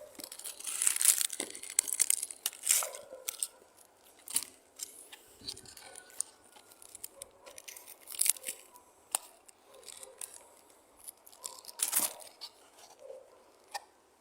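Dry twigs and leaves crackling and rustling, with irregular sharp snaps, densest in the first few seconds and again twice later.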